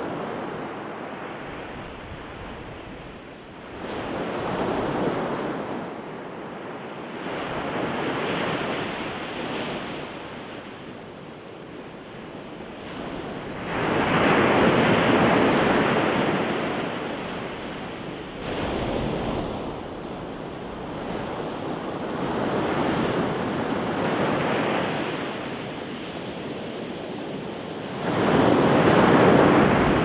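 Pacific Ocean surf breaking and washing up the beach, rising and falling in swells every few seconds. The biggest swells come near the middle and at the end.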